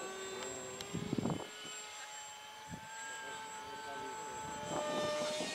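Radio-controlled model airplane's motor and propeller whining steadily in flight overhead, several tones at once that drift slowly in pitch. It grows louder near the end as the plane comes closer, and a brief low rumble sounds about a second in.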